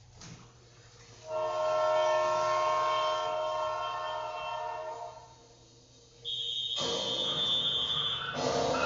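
A long, steady horn-like chord of several held tones lasting about four seconds, then after a short gap a high steady tone joined by a loud rushing noise.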